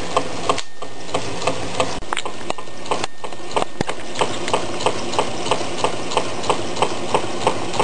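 Meccano Stirling engine running, with a steady mechanical knock about three times a second in time with its crank; the knock is typical of the displacer banging the bottom of its chamber. The sound breaks off briefly about half a second in and again around three seconds in.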